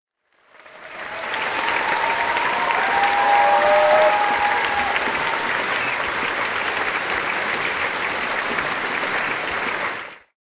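Theatre audience applause: many hands clapping together with a few brief whoops in the middle. It fades in near the start and fades out just before the end.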